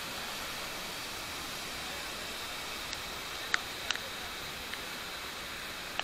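Large waterfall in flood: a steady, even rush of falling water. A few sharp ticks come in the second half.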